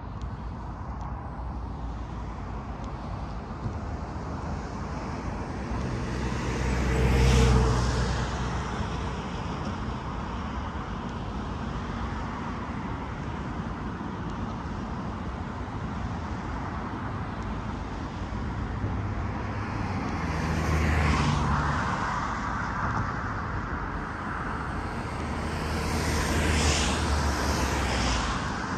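Steady road traffic noise. Motor vehicles pass by, with tyre and engine noise swelling and fading about seven seconds in, again around twenty-one seconds, and once more near the end.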